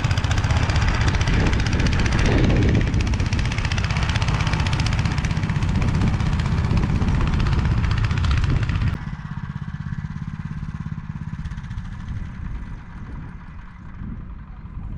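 Motor Sich walk-behind tractor engine running hard while driving its rotary tiller. About nine seconds in the sound drops abruptly to a quieter, lower running note.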